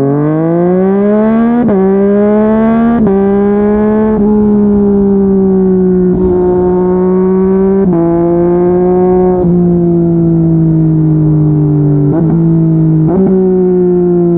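Yamaha MT-09 inline-three running through a Yoshimura R55 slip-on exhaust under riding load. It revs up through three quick upshifts, each a brief break and drop in pitch, then runs at fairly steady engine speed with a few short breaks as the throttle is eased and shifts are made.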